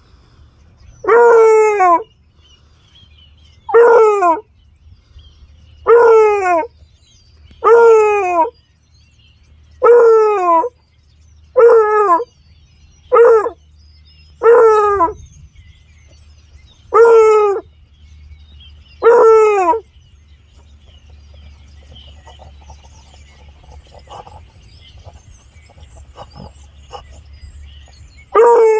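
A beagle-basset hound mix baying on a cottontail rabbit's scent trail: ten short, loud bays about two seconds apart, each dropping in pitch at its end. Then the bays stop, and for the last several seconds there is quieter close sniffing at the grass.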